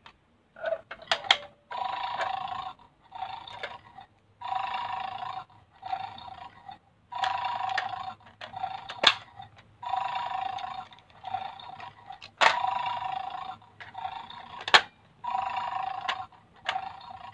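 A toy bulldog game's electronic snoring sound effect from a small speaker, repeating in short bursts a little over a second apart. Sharp plastic clicks come in between as the crocodile-dentist toy's teeth are pressed down.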